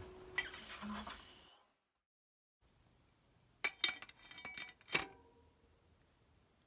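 Sharp metallic clinks with a short ring: a cluster of them about halfway through and one more a second later, as a bicycle's spoked front wheel hub is set into the steel fork dropouts. Lighter workshop clicks come before a brief dropout to silence.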